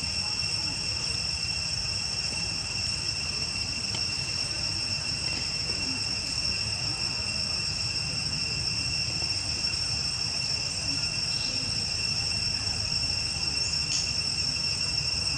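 Insects droning steadily, a continuous high-pitched chorus without a break, over a low rumble.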